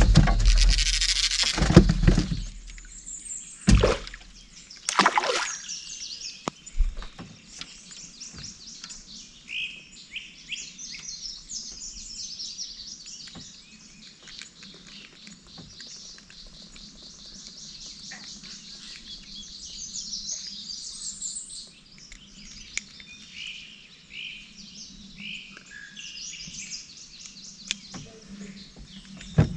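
Birds chirping and calling in a dense, continuous chorus of short high chirps. In the first few seconds a loud rush of noise and a couple of sharp knocks stand out over it.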